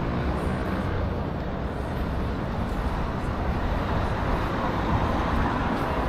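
Steady outdoor street ambience dominated by road traffic noise, an even rumble and hiss with no distinct single event.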